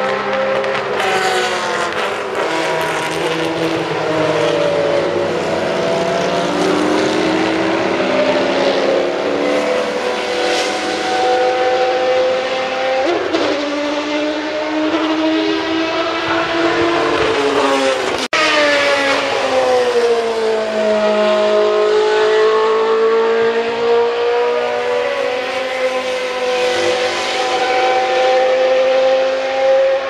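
Group C sports-prototype race cars at racing speed, their engine notes rising and falling steadily through the gears. The sound breaks off abruptly about eighteen seconds in and resumes at once with a falling then rising engine note.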